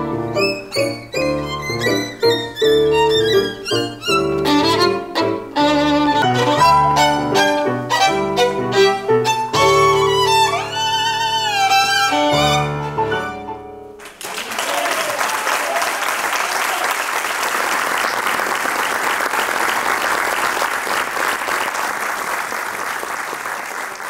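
Violin and digital piano playing a classical-style piece that ends about 14 s in, the violin's last notes held with vibrato. Audience applause follows steadily for the last ten seconds.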